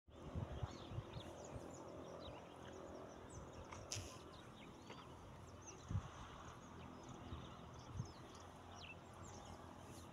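Small birds chirping over a faint steady outdoor hiss, with a few brief low bumps, the loudest about six seconds in.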